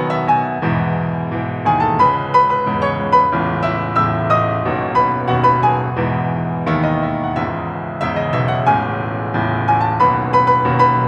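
Bösendorfer grand piano played solo: a melody of struck notes in the upper middle range over held chords and bass notes, at a flowing, even pace.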